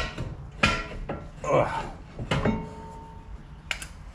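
Lexus GS 350 front brake caliper and pads being wiggled loose from the rotor by hand: a handful of sharp metal knocks and clinks, about one a second, with a short rattle about a second and a half in.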